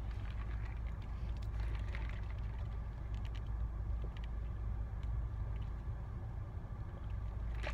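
Steady low rumble of a car, with a few faint small clicks over it.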